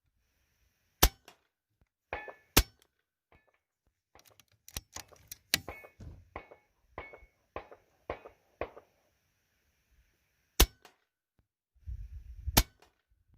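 Four sharp shots from a Hatsan Nova .177 air rifle firing 16-grain hollow-base slugs: two about a second and a half apart near the start, and two more near the end. Between them come a run of smaller metallic clicks and knocks.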